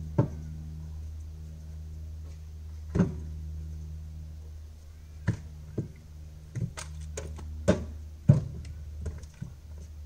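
JCB 3CX backhoe's diesel engine idling steadily while split firewood logs are thrown into its loaded front bucket, landing with a series of sharp wooden thunks. The thunks come irregularly, a few early on and then in quicker succession in the second half.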